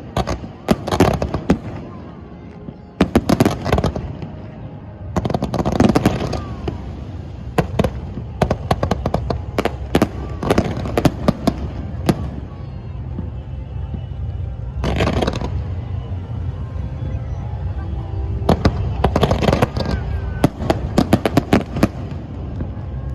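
Fireworks display going off: clusters of sharp bangs and crackling bursts come in volleys a few seconds apart, with a steady low rumble between them.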